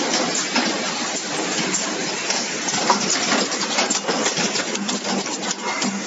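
Automatic cable stripping and crimping machinery running: a steady mechanical hiss and clatter with many small, irregular clicks.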